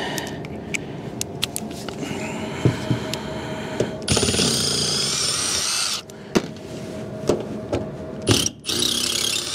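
Cordless Milwaukee M18 impact driver backing screws out of a metal roof panel. It runs in several bursts, the longest about four seconds in and another near the end, with sharp metallic clicks between them.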